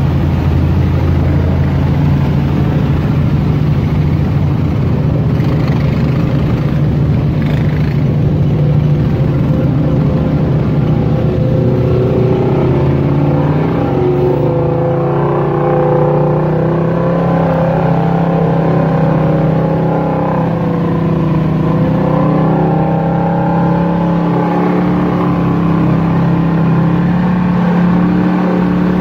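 Side-by-side UTV engine running steadily as it drives a mud trail. About twelve seconds in its pitch climbs to higher revs and stays there, wavering as the throttle changes.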